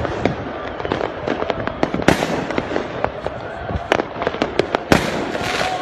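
Supporters' firecrackers and fireworks going off en masse: a constant crackle with many sharp bangs at irregular intervals. Louder bangs come about two seconds in and just before the five-second mark.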